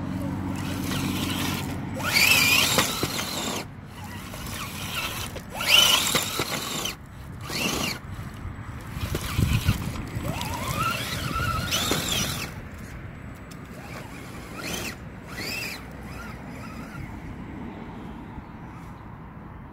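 Axial SCX10 RC crawler's electric motor and gear drive whining in repeated throttle bursts, the whine wavering and rising in pitch. It grows fainter near the end.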